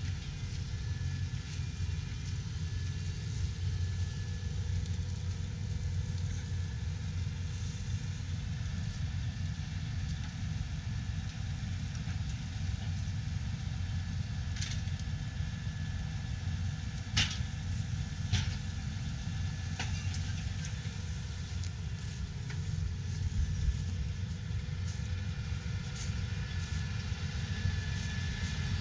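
John Deere 9410R tractor's diesel engine running steadily at low revs. A few sharp clanks come about halfway through, while the hitched tillage tool's wings are being folded up.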